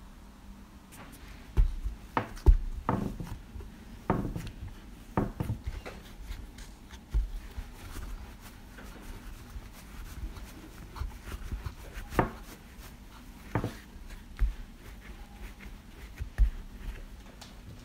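Rice-flour dough being kneaded and rolled by hand on a bamboo cutting board: irregular dull thumps as it is pressed against the wood, with soft rubbing in between.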